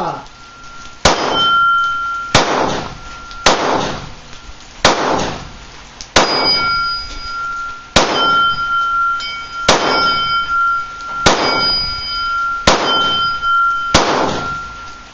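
Glock 19 Gen 4 9mm pistol fired ten times in slow succession, a shot every one to two seconds, cycling without stoppages. A high ringing tone lingers after many of the shots.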